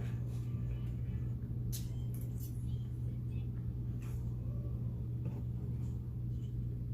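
Steady low hum with a few faint clicks and taps.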